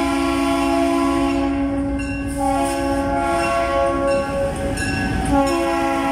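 EMD GP38-2 diesel locomotive sounding its multi-note air horn in long blasts, the chord breaking briefly about two seconds in and again near the end, as the lead unit passes close by. The rumble of the locomotive and its wheels swells as it comes alongside.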